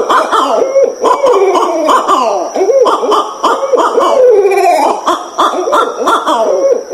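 Barred owls caterwauling: a dense, overlapping chorus of wavering hoots and wails that slide up and down in pitch. A faint steady high tone runs behind it.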